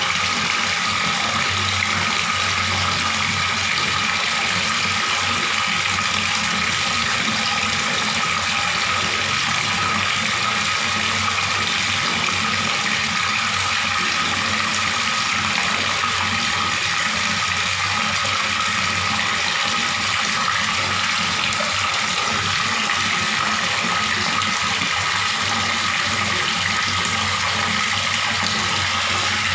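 Water running steadily from a tap in an even, unbroken stream.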